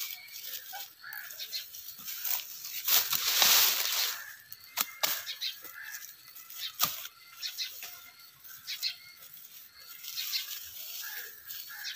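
Dry garlic stalks and straw rustling and crackling as they are pulled apart and stripped by hand, with a louder rustling swell about three seconds in and a few sharp snaps later. Birds chirp in the background.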